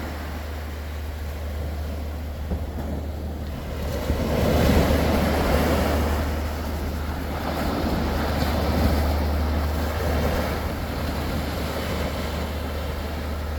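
Sea waves washing, swelling twice, over a steady low rumble with wind on the microphone.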